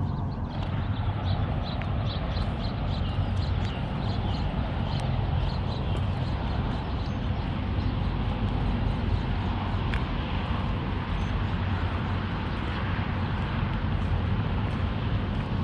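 Footsteps crunching on a gravel desert trail, a regular faint tick about twice a second, over a steady low rumble.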